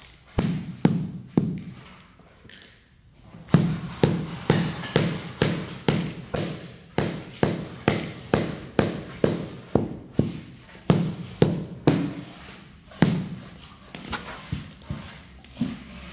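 Rubber mallet knocking a large porcelain floor tile down into its bed, about two blows a second. The blows pause for a second or so early on, then run on steadily.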